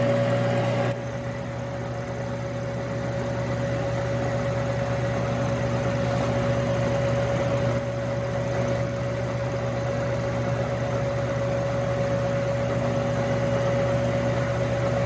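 Milling machine running off a rotary phase converter, a steady electric hum with a constant whir, while the mill's cutter works a channel into half-inch scrap metal plate.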